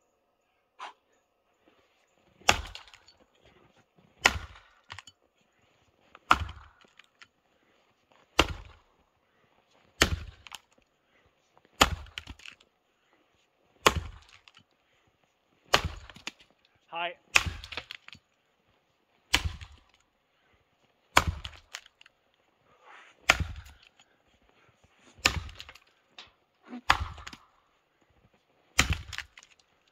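Axe chopping into a semi-dry, frozen sugar maple log: a sharp crack as the bit strikes the wood about every two seconds, some fifteen blows in steady rhythm.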